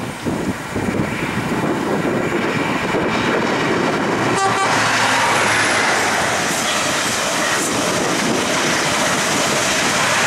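A container freight train running past with a low clatter of wagons; then, from about four and a half seconds in, an InterCity 125 high-speed train passing close at speed, a louder, higher, steady rush of wheels and air.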